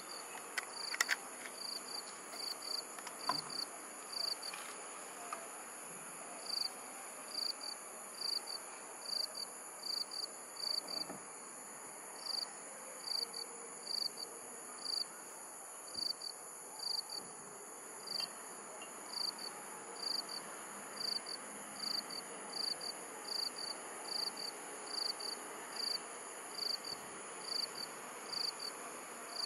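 Night insects, likely crickets, chirping: short high chirps, often in pairs, repeat about once a second over a steady high-pitched insect drone. A few clicks and rustles sound near the start.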